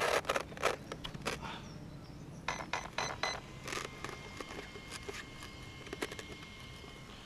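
Clicks, knocks and scrapes of hands handling an RC buggy's plastic body shell and chassis, thickest in the first second and a half, with a few short high beeps about three seconds in.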